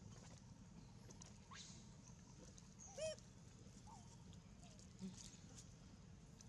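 A single short, high squeak from a baby long-tailed macaque about three seconds in, over a faint low background hum, with a few fainter chirps and a light tap around it.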